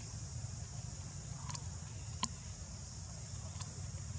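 Steady high-pitched buzz of insects over a low, even rumble, with a few faint clicks, the sharpest a little past two seconds in.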